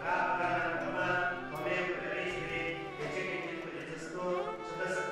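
Devotional song: music with several voices singing long, held notes that bend in pitch.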